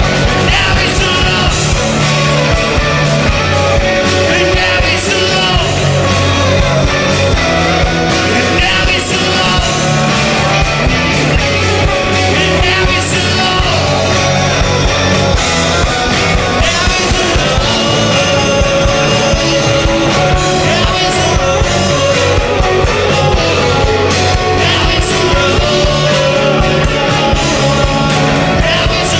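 Punk rock band playing live and loud: drums, guitar and a singer's voice, with a steady beat throughout.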